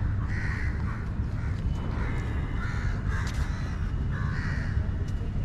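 Crows cawing, a run of short, harsh caws repeated several times over a steady low rumble.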